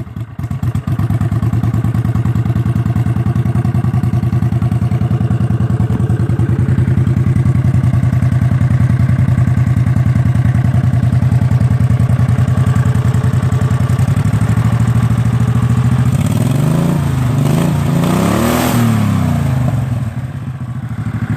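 Briggs & Stratton Vanguard 14 hp V-twin mower engine running steadily at idle on its first run after a cracked rocker arm was welded. Near the end it is revved up and back down twice.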